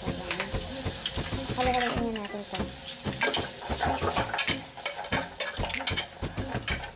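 Metal ladle stirring and scraping chopped carrots, hotdog and chicken around an aluminium pot, clinking against the metal again and again, over the sizzle of the ingredients sautéing.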